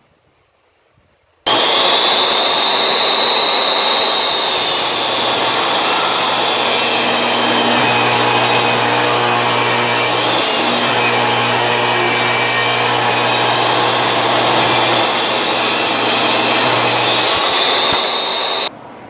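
Table saw running and ripping a wooden board along its fence. The motor's high whine is strongest at the start and near the end, when the blade runs free, and weaker while it cuts. The sound starts abruptly about a second and a half in and cuts off just before the end.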